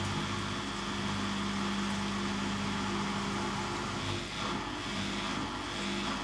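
Zanussi ZKN7120L washing machine running mid-cycle, giving a steady mechanical hum with a faint high whine over it.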